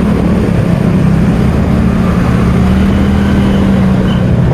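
Motorcycle engine running steadily while riding in slow city traffic, heard from the rider's seat as a continuous low hum over road rumble.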